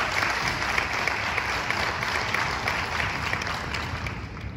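Audience applauding in a large hall, a dense patter of many hands clapping that slowly weakens and dies away near the end.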